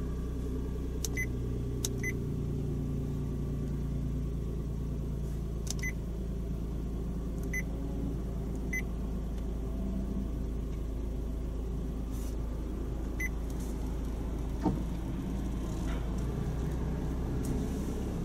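Idling car engine heard inside the cabin of the stationary car: a steady low hum with a few faint, scattered clicks. Near the end a large truck passes close in front.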